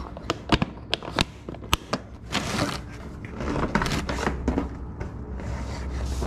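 Clear plastic tackle boxes being handled: a quick series of sharp plastic clicks and knocks in the first couple of seconds, then rustling and clattering as a box of lures is lifted.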